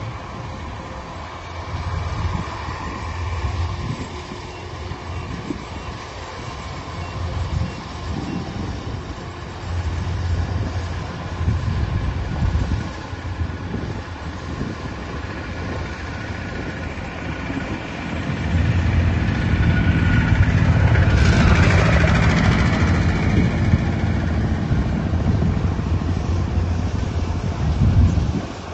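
Heavy machinery engine running with a low, uneven rumble. It grows louder from about two-thirds of the way in, with a rushing noise joining it briefly.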